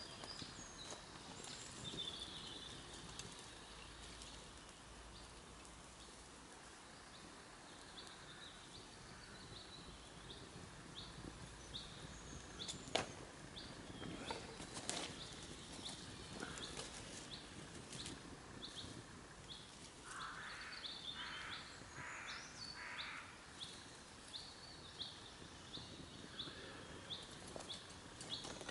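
A small woodland bird repeating a short high call steadily, a bit more than once a second, over quiet forest ambience. There are a couple of sharp snaps about halfway through, and a short spell of rustling a little later.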